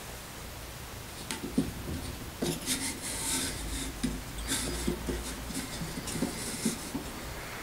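Wooden holder sliding along the mast of a small wooden tabletop easel, wood rubbing on wood in several scraping strokes with a few light knocks.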